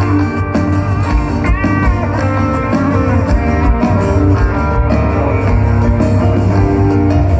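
Live band playing an instrumental break of a Christian pop ballad: a lead guitar plays bending melody lines over bass and drums, with no singing.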